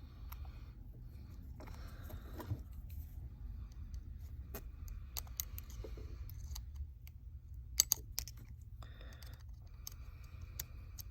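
Small repair tools clicking and tapping on a smartphone's internal parts and screws as the logic board is freed. The clicks are irregular, with two sharper ones about eight seconds in.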